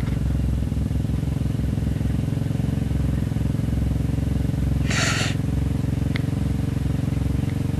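A vehicle engine idling steadily, with a short hiss about five seconds in.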